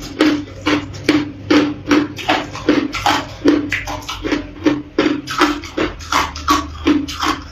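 A person chewing a mouthful of hard ice: steady, sharp crunches at about three a second as the ice cracks between the teeth.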